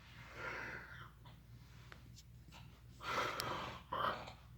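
A man snoring in his sleep: a softer breath about half a second in, then a louder snore around three seconds in followed closely by a shorter one.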